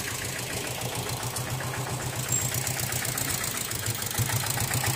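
A vehicle engine idling with a steady, even chugging beat, a little louder near the end.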